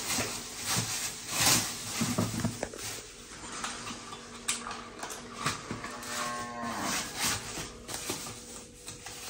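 Plastic bubble wrap and packaging crinkling and rustling in irregular bursts as a parcel is unwrapped by hand, with a long cardboard box being handled.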